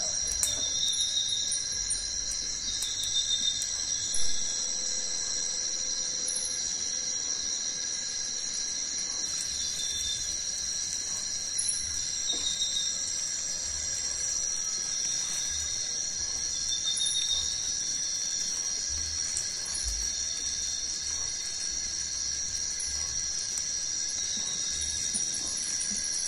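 Steady high-pitched drone of a tropical forest insect chorus, with short chirps from other insects or birds repeating on top, and a single soft knock about four seconds in.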